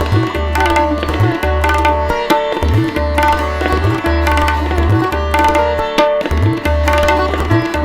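Background music: sharp hand-percussion strokes over a melody, with a deep bass note that slides up and returns at a steady beat roughly every second and a quarter.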